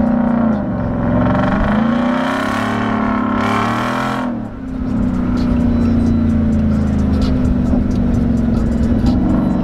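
2018 Ford F-150's engine heard from inside the cab on a dirt road: the engine note dips, climbs steadily for about three seconds, then drops away about halfway through and settles to a steady cruise. Two short rushes of hiss come during the climb.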